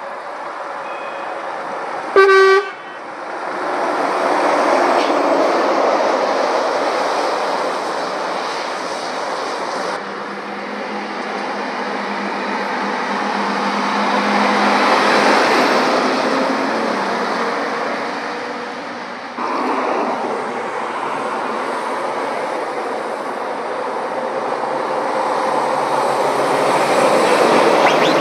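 Lorries passing on a road, their engine and tyre noise swelling and fading as each goes by. A short, loud toot of a vehicle horn sounds about two seconds in.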